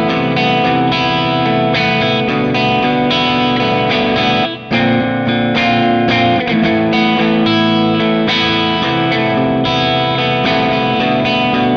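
Les Paul electric guitar playing chords through a Kemper profile of a Bad Cat Hot Cat 40 amp (a KT88-powered head), with an overdriven tone. The playing breaks off briefly twice, about four and a half and six and a half seconds in.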